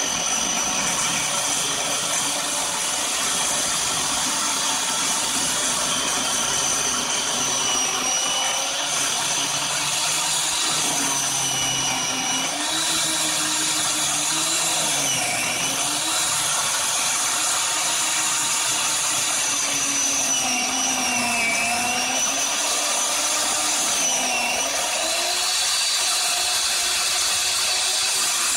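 Worx WG305.1 14-inch corded electric chainsaw running continuously as it cuts straight down through a rotten stump. Its motor pitch dips and recovers several times as the chain bites into the wood.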